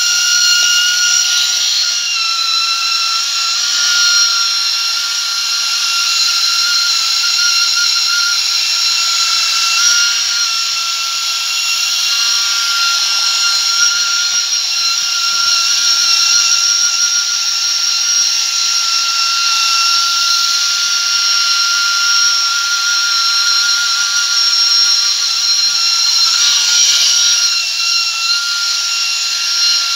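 A 1970s Japanese battery-operated tin toy bus running, its small electric motor and gearing giving a steady, high-pitched whine.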